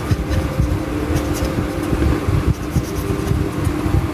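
A steady mechanical hum over a low rumble, with light scratching of a pen on paper.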